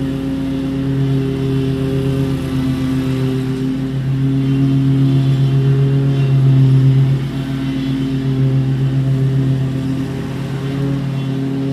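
Engine of a Scag V-Ride II stand-on lawn mower running at steady high speed while mowing, its hum swelling slightly to a peak and then dropping back about seven seconds in.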